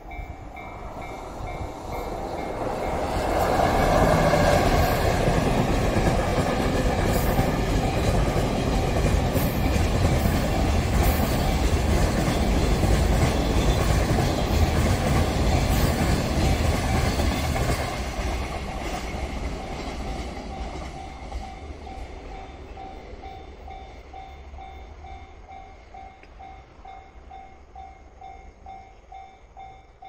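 A long container freight train passes a level crossing. The wheels of its wagons clatter and rumble loudly for most of the first half, then fade as the train draws away. Through it all the crossing's warning bell rings steadily at about two strokes a second, heard plainly once the train has faded.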